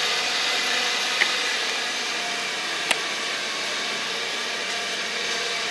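A steady rushing noise with one sharp click about halfway through.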